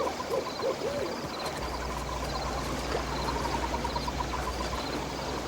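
An owl hooting three or four times in the first second, over a steady background of rapid, repeated chirping.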